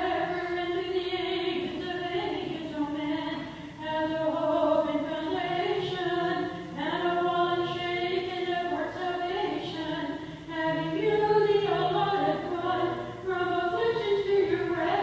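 Unaccompanied Byzantine chant: voices singing a hymn in long held notes that step up and down in phrases. For stretches a lower voice holds a steady drone note beneath the melody.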